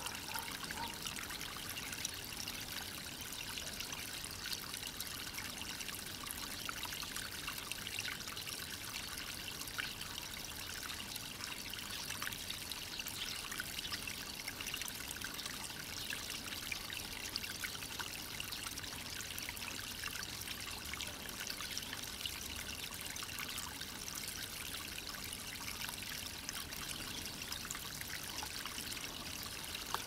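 Steady trickling of shallow running water, an even hiss with small ticks and splashes.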